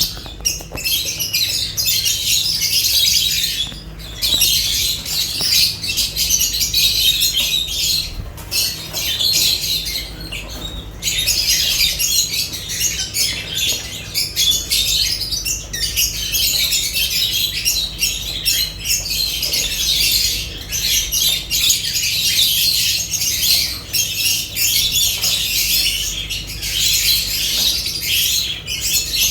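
Lovebirds chattering and squawking nonstop in dense, high-pitched calls, with short lulls about four seconds in and again around the ninth to eleventh second. A steady low hum runs underneath.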